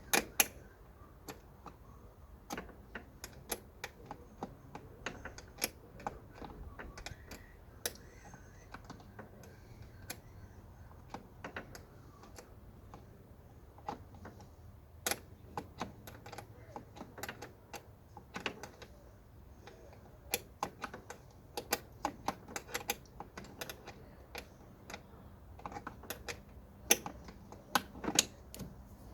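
Irregular light clicks and taps of hard plastic parts and fasteners being handled and fitted in a car's footwell trim, scattered unevenly with a few louder knocks near the start and near the end.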